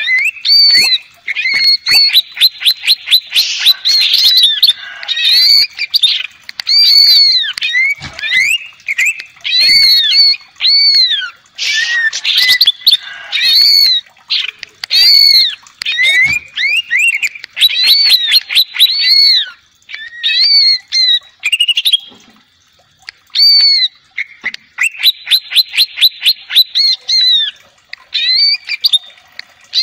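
Caged cucak ijo (greater green leafbird) singing loudly: phrases of repeated arching whistled notes and fast runs of rapid notes, broken by short pauses.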